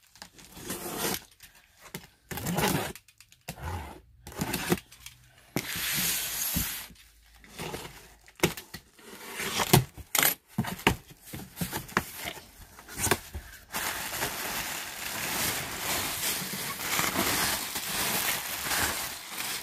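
Box cutter slicing through packing tape on a large cardboard box, followed by stiff cardboard flaps being pulled open, with irregular scrapes and tearing sounds. In the last few seconds, a steadier rustle of plastic wrapping being handled inside the box.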